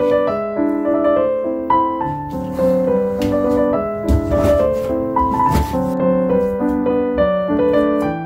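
Background piano waltz music, with a few sharp knife chops on a plastic cutting board underneath it.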